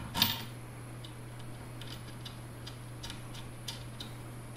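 Scalpel trimming the overhanging edge of a new PEI sheet on a 3D printer's heated bed: one louder scrape just after the start, then scattered light ticks as the blade works along the edge, over a steady low hum.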